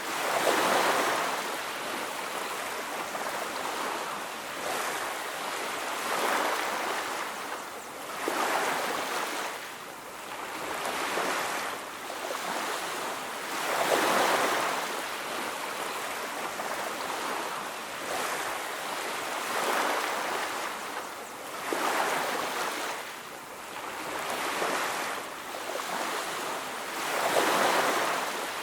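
Ocean surf breaking and washing onto a beach, surging up and falling back every few seconds. The loudest waves come near the start, about halfway and near the end.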